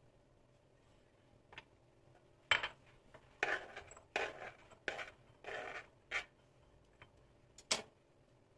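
Kitchen dishes and utensils clattering and scraping. A string of separate knocks and short scrapes starts about two and a half seconds in, and the sharpest click comes near the end.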